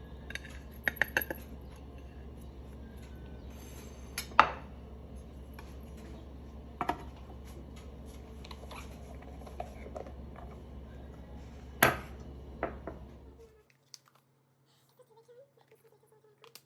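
Dishes and utensils clinking and knocking: a few sharp clacks and taps, two of them louder, over a steady low hum that cuts off suddenly near the end.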